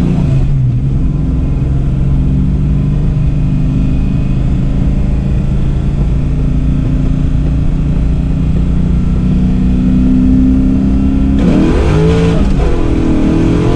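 Carbureted pushrod V8 of a Fox-body Mustang heard from inside the cabin, pulling steadily with its drone slowly rising in pitch. About eleven seconds in it gets louder and the pitch dips and then climbs again.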